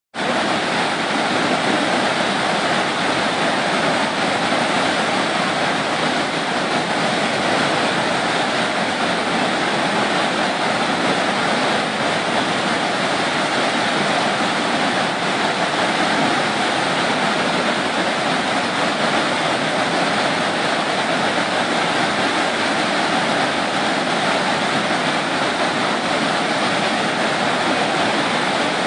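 Steady, loud rushing of whitewater churning through a river's standing surf wave.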